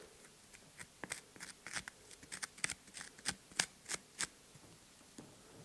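Wooden chopstick scratching and poking through loose potting soil at the base of a tree trunk, raking it back to expose the roots: an irregular run of short dry scrapes and ticks, thinning out near the end.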